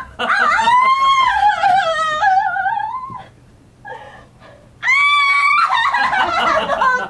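A high-pitched wailing voice: two long, wavering cries, the second starting about five seconds in.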